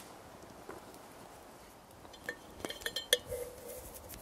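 Stainless steel drinking bottle clinking as it is handled: a run of light metallic clinks starting about two seconds in, one leaving a short ring.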